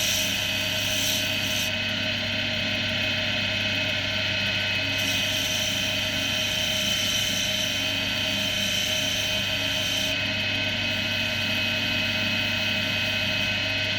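Axminster AC240WL wood lathe running steadily with a constant motor hum, while a tool scrapes the spinning English oak in spells: a hissing cut for the first couple of seconds, again for about five seconds in the middle, and starting again near the end.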